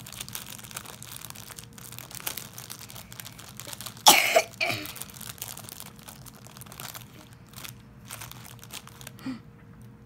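Light crinkling and rustling as a sour candy is picked out, with a loud cough in two bursts about four seconds in. A faint steady hum runs underneath.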